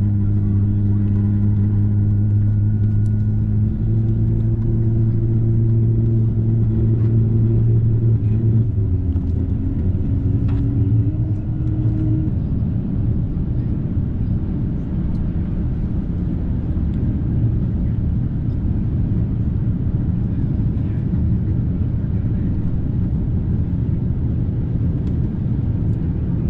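Airbus A350-900 cabin noise while taxiing: a steady low drone with several held tones that shift in pitch about four and nine seconds in and fade out after about twelve seconds, leaving an even rumble.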